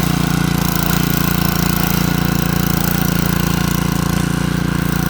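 An engine running steadily at a constant pitch, with no revving or change in speed.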